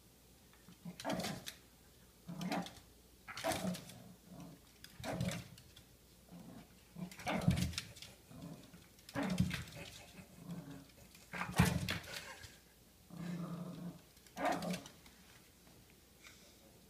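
Yorkshire terrier barking in short bursts about every one to two seconds.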